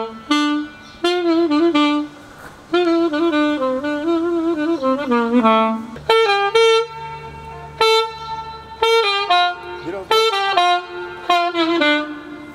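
Alto saxophone playing a solo melody in short phrases, with quick ornamented turns and bends between notes. A low held note sounds underneath from about halfway.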